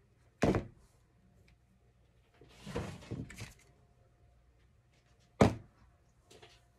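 Handling noise from a hot glue gun and craft materials on a tabletop: a sharp knock about half a second in, a short rustling stretch in the middle, and a louder knock near the end as the glue gun is set down on the table.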